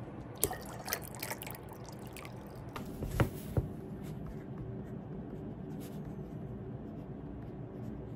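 Hot water in a stainless-steel tumbler: a few small knocks and splashes of liquid in the first half, the sharpest a little after three seconds. Then a steady soft scratching of a pen writing on paper.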